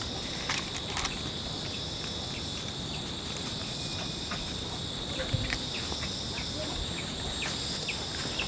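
Steady, shrill chorus of insects droning throughout, with a few scattered small clicks over it.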